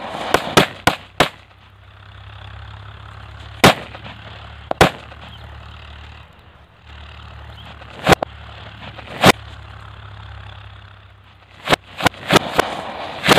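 A pile of firecrackers buried in a hole in the ground exploding one after another: about fourteen sharp bangs at uneven intervals. A quick run of five comes in the first second or so, then scattered single bangs, then another quick run near the end, over a steady hiss of burning powder.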